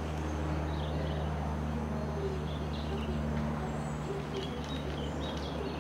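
Piston engine and propeller of a small single-engine light aircraft flying overhead, a steady low hum, with short high chirps scattered over it.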